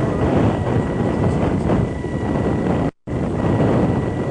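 Wind buffeting a camcorder microphone, a dense low rumble with a thin steady high tone underneath. The sound cuts out completely for a split second about three seconds in.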